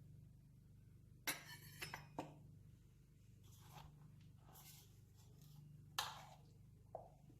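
Kitchen dishes and utensils clinking and knocking: a sharp clink with a short ring about a second in, two or three lighter knocks just after, another sharp clink about six seconds in and a light tap near the end.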